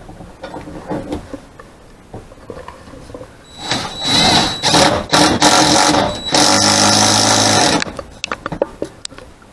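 Cordless drill driving fasteners into an overhead sliding-door track: light knocks of handling, then several short bursts of the motor from about three and a half seconds in, and one steady run of about a second, followed by small clicks.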